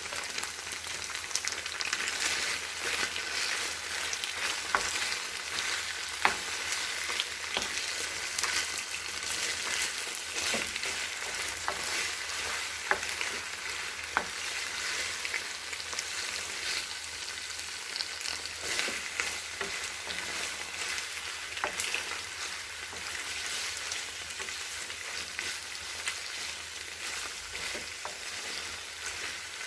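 Food sizzling in a frying pan: a steady hiss full of fine crackles, with a few sharper clicks scattered through it.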